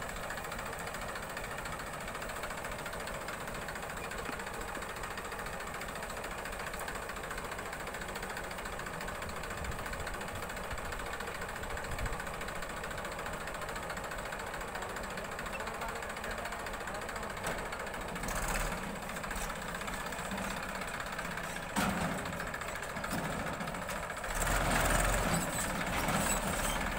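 Diesel engines of a Massey Ferguson tractor and a JCB backhoe loader running steadily. About three seconds before the end it grows louder as the tractor pulls away hauling its loaded trolley.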